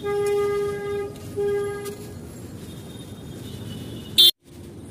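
Vehicle horn sounding twice over street traffic noise: one long blast of about a second, then a short one. Near the end a sharp click is followed by a brief dropout to silence.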